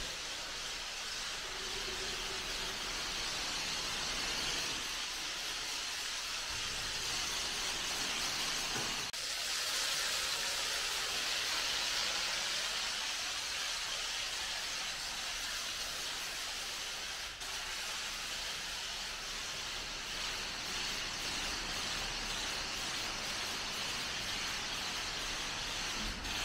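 High-pressure water spray hissing steadily against a car during a wash, a little louder for a few seconds from about nine seconds in.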